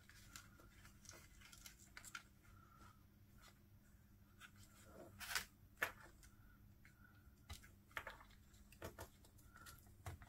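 Faint rustles and light clicks of small cardstock die-cut pieces being handled and trimmed, a little louder about five seconds in.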